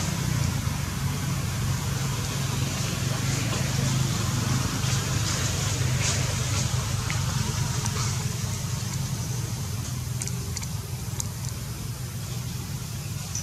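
A steady low motor hum, like an engine running, under a constant high hiss, with a few faint clicks.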